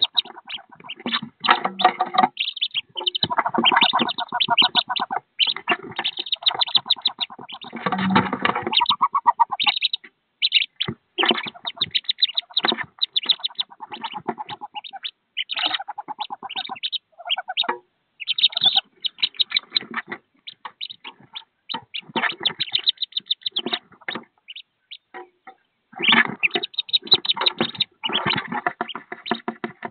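Many wood duck ducklings peeping rapidly together in quick, overlapping runs of short calls, broken by a few brief pauses.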